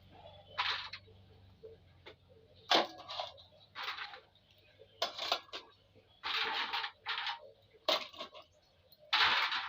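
Mud crab being eaten: a string of about eight short, noisy mouth and shell sounds a second or so apart, the longest and loudest near the end.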